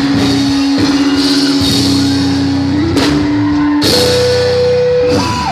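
Live praise band playing: drum kit with cymbal crashes about three and four seconds in, electric bass underneath, and a long held lead note that steps up to a higher pitch near four seconds in, jumps again near the end and slides down.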